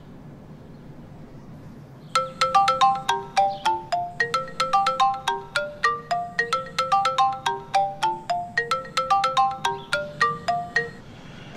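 Mobile phone ringtone: a quick, repeating melody of short, bright notes that starts about two seconds in and stops shortly before the end.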